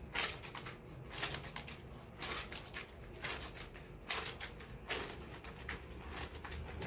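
A cotton dish towel being scrubbed and squeezed by hand in a plastic basin of soapy water: short wet squishes and splashes, about one a second.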